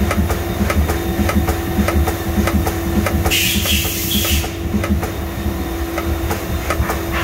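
CNC mill broaching a square hole in brass with a spindle-locked broach tool: a rhythmic knock about three times a second as the tool pecks down and retracts, taking a few thousandths per stroke, over a low machine rumble and a steady hum. A short hiss breaks in a little over three seconds in.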